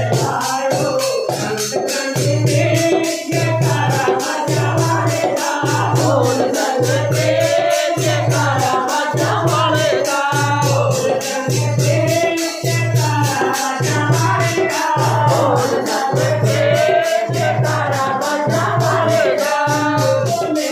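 Group devotional singing of a Sikh shabad, a woman's voice on the microphone leading with others singing along. A shaken or jingling hand percussion keeps a steady quick beat, over a low pulse about once a second.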